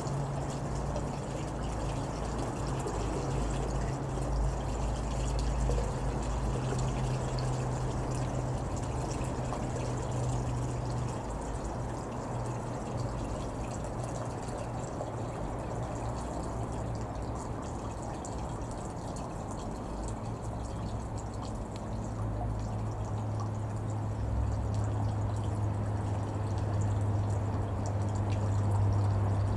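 Distant Airbus A400M Atlas turboprop drone: a steady low hum over a rumbling noise, the hum dropping in pitch twice as the aircraft passes.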